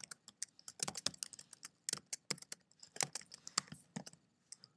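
Typing on a computer keyboard: an irregular run of quick key clicks as a short phrase is typed, stopping shortly before the end.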